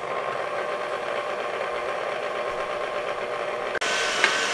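Electric tilt-head stand mixer running on high, its motor whirring steadily as the whisk beats eggs in a stainless steel bowl. It starts abruptly, and near the end it turns louder with a steady high whine.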